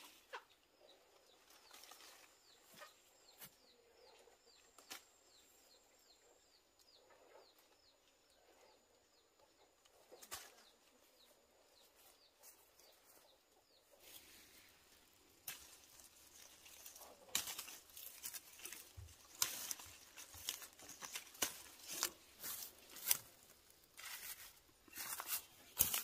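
Leaves and branches of a lemon tree rustling and snapping as lemons are picked, with many sharp crackles, louder in the second half. A run of faint short chirps comes in the first half.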